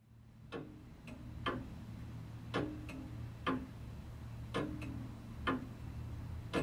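Longcase clock ticking, with a sharp tick about once a second and fainter ticks in between, over a low steady hum.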